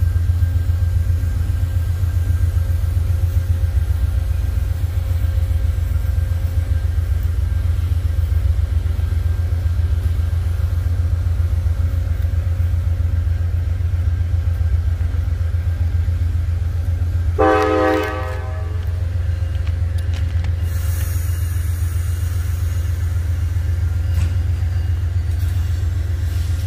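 Freight train rumbling steadily, with one short blast of a diesel locomotive's air horn about two-thirds of the way through.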